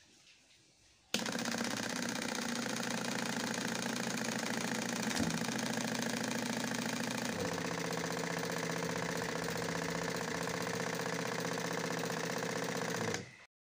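Small DC motor switched on, running steadily as it drives the rig's syringe pump. Its pitch shifts about seven seconds in, and it cuts off suddenly near the end.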